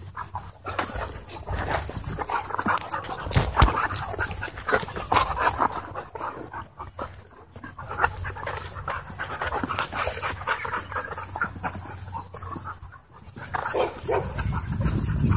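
A German Shorthaired Pointer, a husky and a pit bull play-fighting at close range: panting and play growls mixed with short, irregular sharp noises, as paws scuffle in the dirt.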